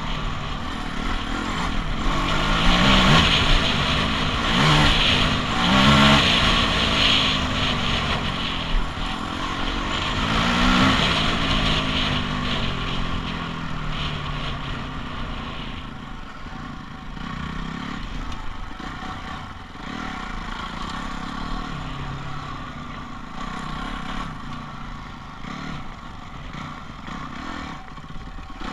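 Dirt bike engine revving up and down repeatedly as it is ridden over rough ground, louder through the first half and then running softer.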